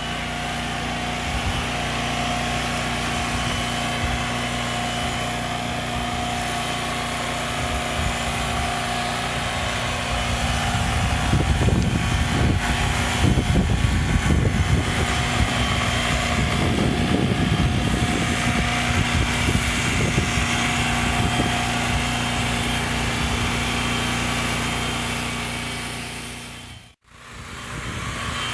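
A small portable gasoline generator running steadily and powering electric animal clippers, with the clippers' motor humming alongside it. The rumble gets rougher and louder for several seconds in the middle, and the sound drops out suddenly and briefly near the end.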